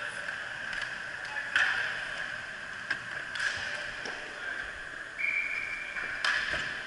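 Inline hockey play on a rink floor: a steady hiss of skate wheels and arena noise, broken by several sharp knocks of sticks and puck. A brief steady whistle sounds about five seconds in.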